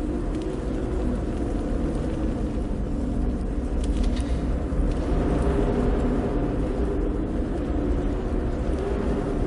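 A steady low rumbling drone with several held tones in it that shift slowly, swelling a little about five seconds in.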